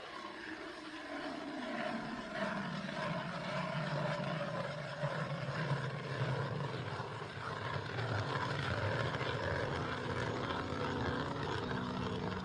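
An engine drone whose pitch slides down over the first few seconds, then holds steady and grows slightly louder.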